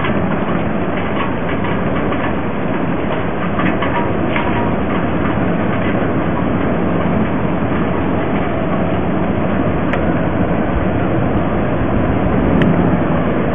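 Strong storm wind rushing through trees as a tornado approaches, a steady, loud roar that also buffets the microphone.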